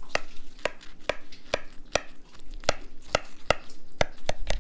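Serrated knife sawing through the crisp, dark-browned mozzarella top of a baked lasagna in a glass dish. It makes a series of sharp crunches, about two or three a second.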